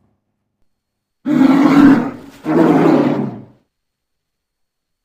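Polar bear roaring twice: two loud calls of about a second each, one right after the other, starting about a second in.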